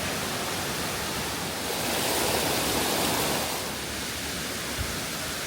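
Water cascading down the rock face of the Place of a Thousand Drips waterfall: a steady rush that grows louder for a second or two in the middle.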